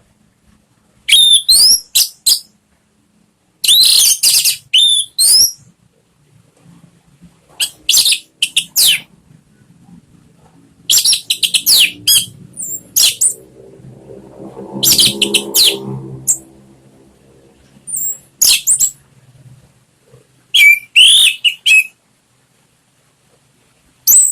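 Orange-headed thrush (anis merah) singing in full, open song: loud phrases of quick, sweeping high notes, each a second or two long, broken by pauses. A faint low hum swells and fades about halfway through.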